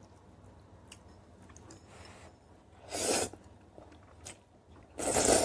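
Close-miked eating: faint mouth clicks, then two loud, short eating noises about two seconds apart, a bite or mouthful each time.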